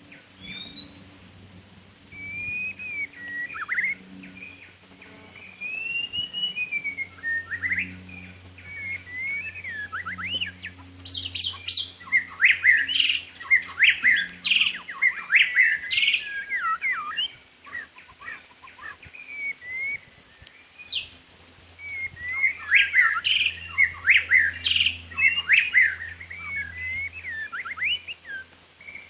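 White-rumped shama singing: varied whistled notes and glides, breaking into longer, louder runs of rapid song about eleven seconds in and again about twenty-two seconds in.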